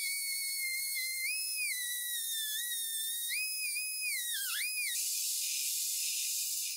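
High-speed rotary tool whining, its pitch drifting down and dipping several times as it is pressed into the work. The whine stops about five seconds in, leaving a steady airy hiss.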